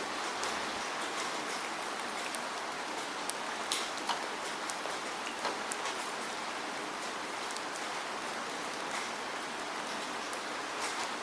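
Steady rainfall: a constant hiss of rain with scattered individual drops ticking close by.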